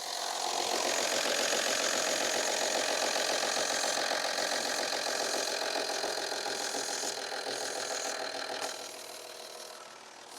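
2003 Audi A4's engine running at idle, a bit noisy, with its newly fitted vacuum pump pulling strong vacuum. The sound swells about half a second in and drops away near the end.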